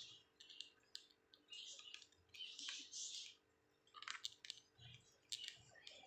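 Young budgerigars making faint, high squeaky chirps, with scattered sharp clicks as they nibble at greens.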